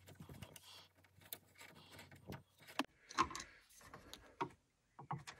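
A screwdriver backing out a T25 Torx screw from the centre console bracket: a few faint clicks and light metallic scrapes with hand rustling, the loudest about three seconds in.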